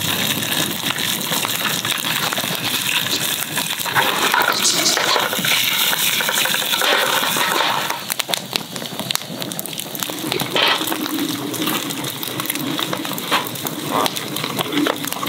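Sausages sizzling and spitting in hot oil in an aluminium mess tin over a wood campfire, a steady hiss full of small pops. The sizzle thins out to sparser crackles about eight seconds in.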